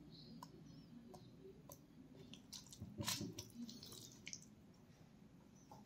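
Faint wet squishing and small clicks of a hand pressing whole shallots into thick masala paste on chicken in a banana-leaf-lined clay pot, with a louder squelch about three seconds in.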